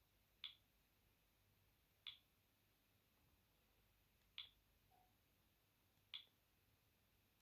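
Four faint, short clicks spaced about two seconds apart: keys on a Sony Ericsson W550i mobile phone being pressed while stepping through its menus.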